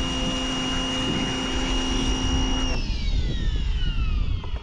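An electric motor-driven machine runs with a steady high whine and hiss, then is switched off about two and a half seconds in and spins down, its whine falling in pitch.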